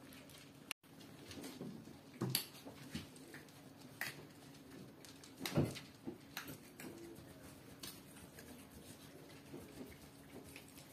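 Small dogs eating from bowls on a laminate floor: scattered crunches, clicks and knocks of food and bowl, two of them louder, about two and five and a half seconds in.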